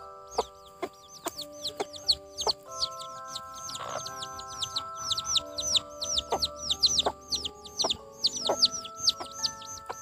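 A brood of chicks peeping without pause, a quick run of short, high, falling chirps, with a hen's short clucks now and then. Background music of held notes plays under it.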